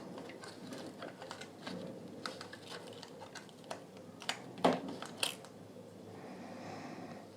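Light, irregular clicks and taps of small parts being handled as the display board is worked out of a portable Bluetooth speaker during disassembly, with a few sharper clicks around the middle.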